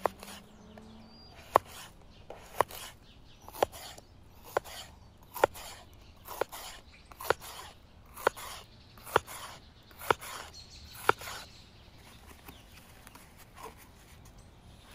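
A knife slicing a potato and then a green bell pepper on a wooden cutting board: a sharp tap each time the blade meets the board, about once a second, roughly ten cuts, stopping a few seconds before the end.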